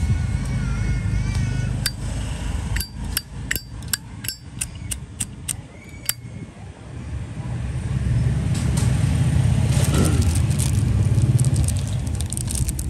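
Low rumble of passing street traffic, growing louder in the last few seconds. In the middle comes a quick run of about a dozen sharp metallic clicks, about three a second, from a Zippo lighter being handled.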